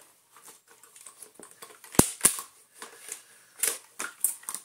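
Plastic clicks and knocks from a Dyson DC40 vacuum's motor housing being handled and turned over during reassembly, with two sharp knocks about two seconds in and a further cluster of clicks near the end.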